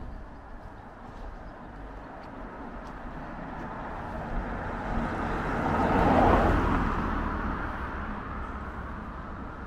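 A car passing on the road, its tyre and engine noise swelling to a peak a little past the middle and then fading away.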